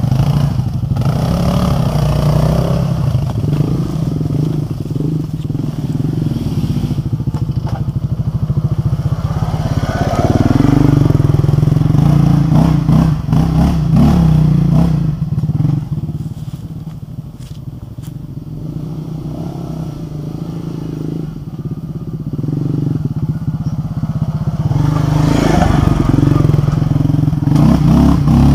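Quad bike (ATV) engine running under load while climbing a rutted dirt trail, with scattered knocks and rattles from the machine over the ruts. The throttle eases off a little past the middle and the engine picks up again near the end.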